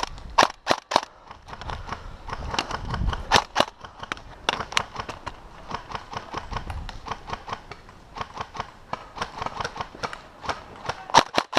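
Airsoft rifles firing: sharp clacking shots at irregular intervals, single shots and short strings, with a quick rapid burst near the end.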